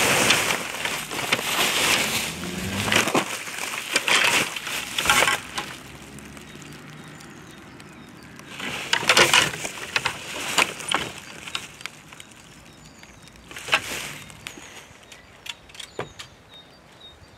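Bubble wrap and plastic packaging crinkling and rustling as fishing rods are unwrapped and pulled out. It is dense for the first few seconds, then comes in separate bursts, with a few light clicks near the end.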